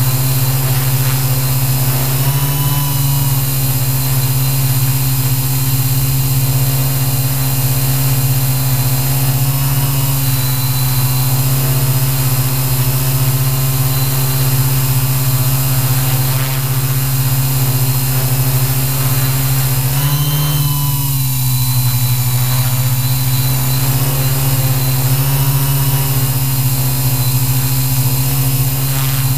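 Multirotor drone's electric motors and propellers humming steadily as it hovers, heard loud from its own onboard camera. The pitch shifts slightly as the motors adjust to hold position, with a brief rise and then a dip about twenty seconds in.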